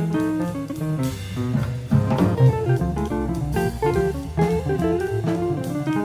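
Instrumental jazz recording: a guitar playing quick melodic lines over double bass and a drum kit with cymbals.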